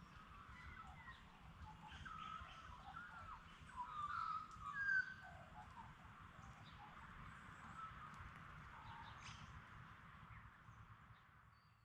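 Several birds calling, short whistled and gliding notes, busiest and loudest in the first five seconds, over a steady hiss and an irregular low rumble; everything fades out at the very end.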